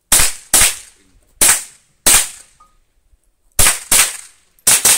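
A .22 LR rifle firing eight sharp shots in quick succession, some in close pairs and some spaced about half a second apart, each crack trailing off briefly.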